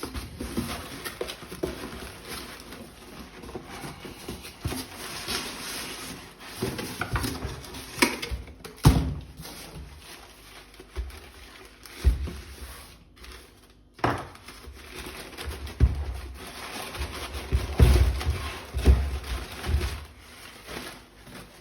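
Packaging being pulled off a blender's motor base: rustling and scraping, with scattered knocks and several dull thumps as the unit is handled and set down.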